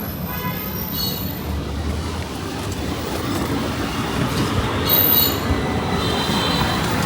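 Busy street noise with a steady low rumble and several brief high-pitched squeals, about a second in and again around the middle and near the end.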